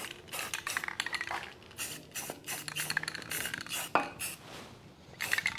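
Rust-Oleum aerosol spray-paint can being shaken, its mixing ball rattling in quick, irregular clicks, with one sharper click about four seconds in.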